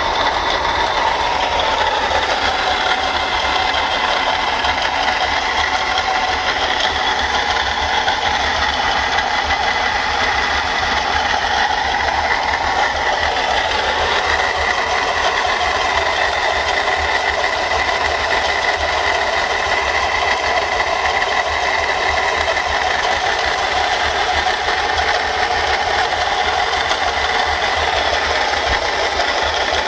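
Mercedes-Benz C240's V6 engine running with a steady mechanical rattle from a water pump whose bearing has failed, letting the pump wobble.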